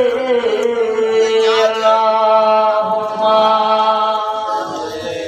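A man singing a Bengali Islamic devotional song about Medina unaccompanied, drawing out long held notes that fade near the end.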